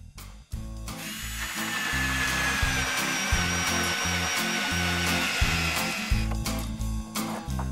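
Cordless drill spinning a small buffing head against a painted hull, its motor whine falling slowly in pitch as it works, stopping about six seconds in. Background music with a bass line plays throughout.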